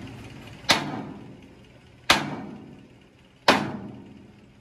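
Hammer blows on the steel of a crane boom: three sharp metallic strikes about a second and a half apart, each ringing briefly and dying away.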